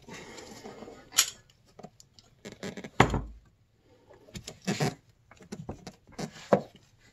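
Scattered small clicks, knocks and rubbing as a gloved hand handles clear plastic hoses on a snowmobile carburetor, with a duller thump about three seconds in.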